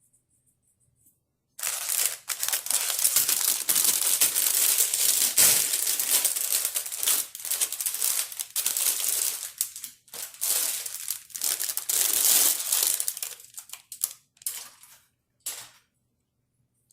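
Plastic packaging crinkling and rustling as it is handled. It runs almost without a break for about twelve seconds, then comes in a few short bursts before stopping.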